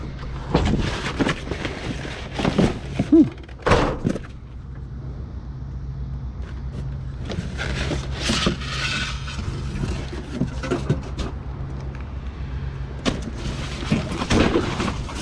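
Junk being rummaged through in a dumpster: irregular knocks, thuds and clatters of items being shifted, with a longer rustle about eight seconds in. A steady low hum runs underneath.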